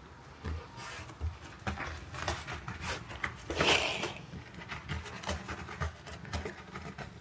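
A cat moving about close by: a run of soft taps and rubbing, with one louder noisy sound about halfway through.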